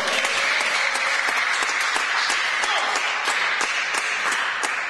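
Spectators clapping in a sports hall, applauding a point just won in a table tennis match; the clapping is steady and begins to fade near the end.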